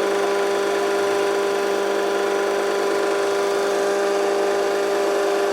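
Boyar Schultz No. 2 dual spindle profile grinder's electric spindle motor running at speed: a steady hum with a whine.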